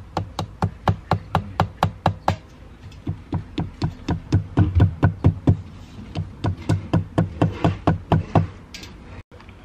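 Hammer tapping quickly on the metal render bead and mesh along the top edge of a planter box, about four light blows a second. There is a short pause about two and a half seconds in, then a longer run of blows that stops shortly before the end.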